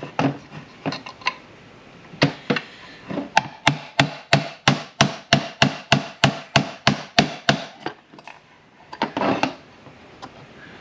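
Hammer tapping metal, driving a stuck part out of a manual transmission shift tower: a few scattered taps, then a steady run of about three strikes a second through the middle, and a few more near the end.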